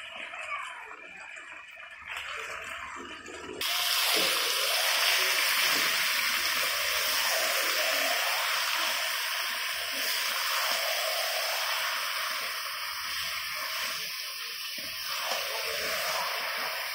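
Chicken pieces and potato chunks sizzling in hot oil and spice paste in a steel wok, stirred with a metal spatula. This is the meat being fried in the masala just after it went in. The sizzle jumps much louder about three and a half seconds in and holds steady, with the short strokes of the spatula under it.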